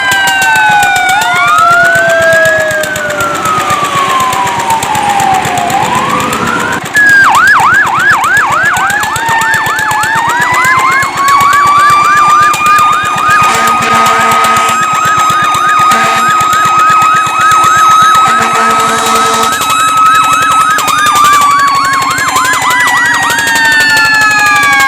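Fire truck sirens: a slow wail falls and rises. About seven seconds in it switches to a fast yelp, with a second siren holding a steady wail alongside, and then returns to the slow wail near the end. Three short horn blasts sound in the middle.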